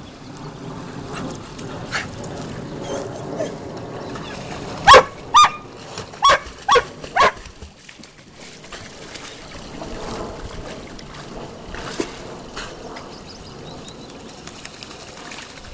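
A dog barks five times in quick succession about a third of the way in, over the steady splashing of dogs playing in a shallow stream.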